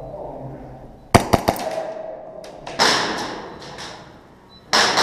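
Airsoft gunfire echoing in a plywood-walled indoor arena: three sharp shots in quick succession about a second in, then louder rapid strings of shots near the middle and again near the end.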